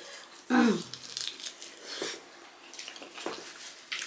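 Close-up eating sounds: wet chewing and the squish of rice and curry being mixed and eaten by hand, with scattered small clicks. A short falling vocal sound, the loudest moment, comes about half a second in.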